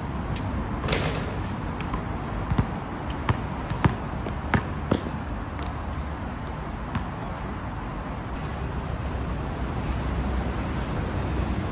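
Basketball bouncing on an outdoor hard court during one-on-one play. There are a string of sharp, irregular bounces about half a second to a second apart, mostly in the first seven seconds, over steady background noise.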